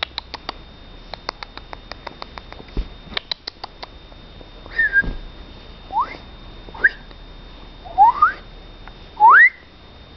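A person whistling to a dog in short rising whistles, about five of them in the second half, trying to rouse it. A run of small quick clicks comes first.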